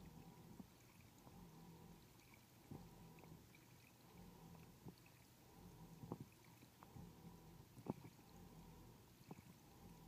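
Near silence: a faint steady hum with a few soft clicks scattered through.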